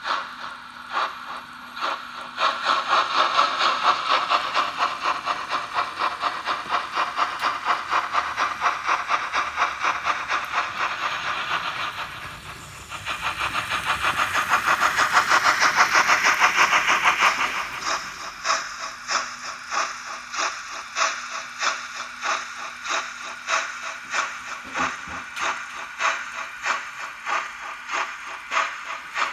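Märklin HO-scale model steam locomotive's sound decoder playing steam-engine chuffing: fast, loud chuffs at first, a long swelling steam hiss in the middle, then slower, steady chuffs about two a second as the engine runs at low speed.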